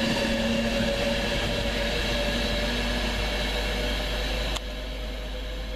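Class 390 Pendolino electric train passing close at speed: a steady rush of wheel and air noise with a humming tone from the train. About four and a half seconds in, the sound drops suddenly to a quieter, more distant train noise.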